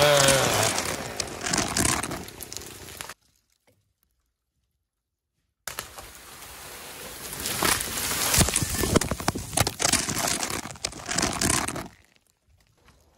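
Dense crackling, snapping and swishing of spruce branches as a felled spruce comes down, with boughs brushing right against the microphone as it lands in the snow. Before a short silent cut, an earlier loud sound tails off over the first few seconds.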